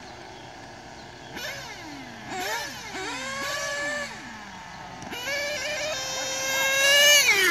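Nitro engines of Serpent RC cars revving in short high-pitched blips that slide down in pitch, then held at a steady high whine for about two seconds, growing louder, before the pitch drops at the end.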